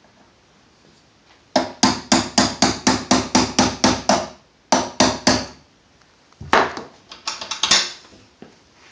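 Hammer tapping a punch to drive the bolt catch roll pin into an AR-15 lower receiver: a quick, even run of about a dozen taps, two more taps, then a faster flurry of taps.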